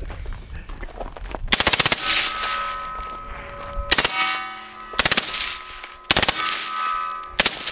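Suppressed full-auto AR-15 fired in five short bursts, the first and longest about a second and a half in. After each burst a steel target rings on for a second or more.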